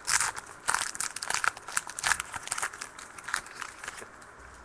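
Plastic-foil trading-card pack wrappers crinkling in irregular crackles as a pack is torn open and handled, stopping about four seconds in.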